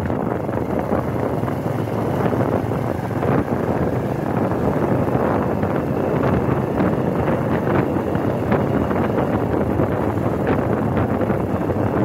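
Wind buffeting the microphone of a camera on a moving vehicle, over a steady low hum of engine and road noise.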